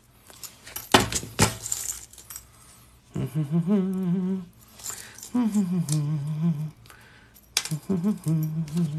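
14-gauge steel jump rings clinking and pliers clicking shut on a ring, a few sharp clicks in the first two seconds. Then a person hums three long, wavering notes.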